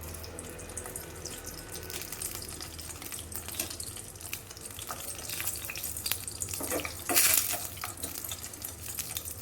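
Leftover candle wax melting in an old bowl over a flame, crackling and sizzling with many small clicks as it is stirred to keep it from blackening and burning. A louder short burst of noise comes about seven seconds in.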